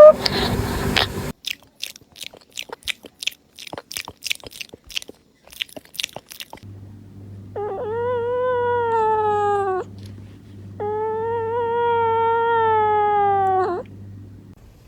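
A sleeping cat snoring with a whistle: two long, steady whistling tones, each two to three seconds, with a slight drop in pitch. Before them comes a run of small irregular clicks.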